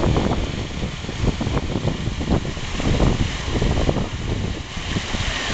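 Wind buffeting the camera microphone: an uneven low rumble that rises and falls in gusts.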